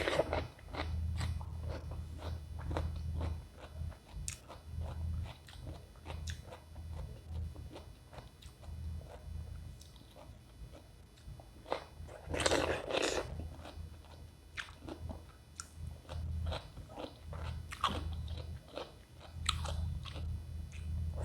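Close-miked eating of raw cucumber: two loud crunchy bites, one at the start and one about twelve seconds in, with steady crisp chewing between, over a low hum.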